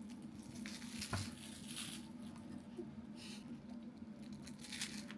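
Faint crisp crackling of flaky mille-feuille puff pastry being bitten into, in a few short bursts over a low steady hum.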